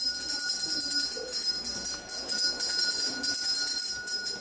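School bell ringing steadily, the signal for the start of the lesson.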